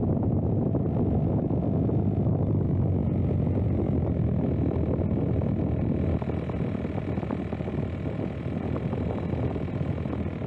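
Electric RC seaplane's motor and propeller running steadily, mixed with heavy wind rumble. A faint steady whine comes in about six seconds in, as the overall level drops a little.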